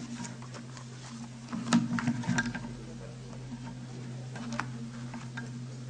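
Sheets of paper being handled at a lectern microphone: scattered rustles and light knocks, busiest about two seconds in. Under them runs a steady low hum.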